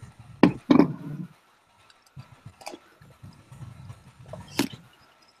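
A few sharp clicks and knocks, two close together near the start and the loudest about four and a half seconds in, over faint low background noise.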